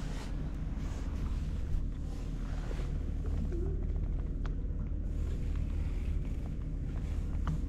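A steady low engine rumble with wind noise on the microphone.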